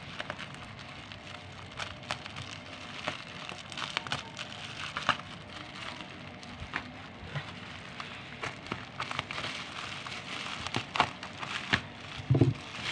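Plastic bubble wrap crinkling and crackling as it is handled and unwrapped from a bottle, with many small irregular clicks.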